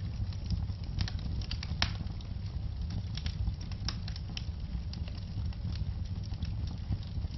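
Wood logs burning in a fireplace, crackling and popping with frequent sharp pops over a low, steady rumble of the flames. One pop, about two seconds in, stands out as the loudest.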